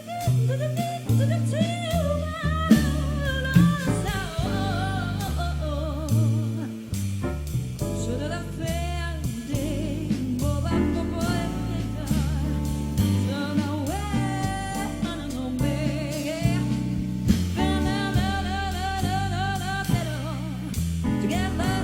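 Vocal group singing in harmony, several voices with vibrato, over a band with a walking bass line and drum kit.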